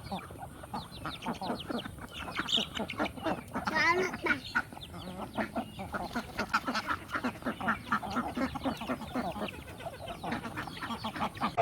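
A flock of ducks quacking: many short calls repeated quickly and overlapping.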